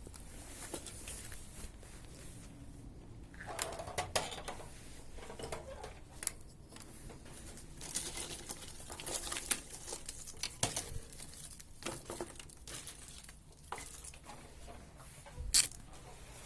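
Irregular crumpling, tearing and scraping of handled debris, with scattered clicks and knocks; a sharp click about three-quarters of the way through is the loudest sound.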